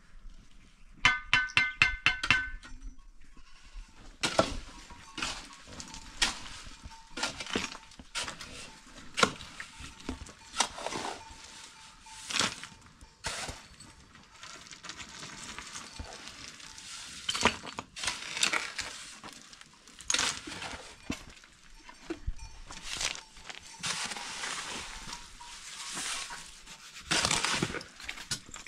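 A goat bleats briefly near the start. After that, a shovel scrapes and chops through wet cement mortar in a metal wheelbarrow in repeated irregular strokes, mixed with knocks and clinks of blocks being set, and longer scrapes near the end.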